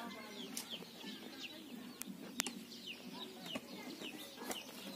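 Chickens calling in short, falling chirps, with two sharp clicks from shovel work about two seconds in.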